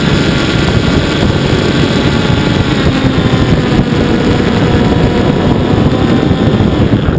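Onboard audio of a radio-controlled model airplane in flight: its motor and propeller running steadily under loud wind noise on the microphone.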